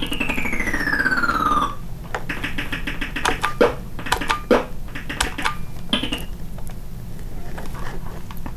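8-bit TRS-80 Color Computer game sound effects: an electronic tone that falls steadily in pitch for under two seconds, then a run of quick, short beeps and blips.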